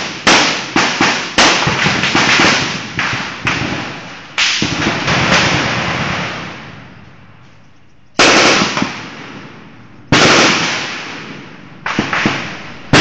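Rifle gunfire: a rapid string of single shots, two or three a second, each with a long rolling echo. After a lull, single shots come about two seconds apart.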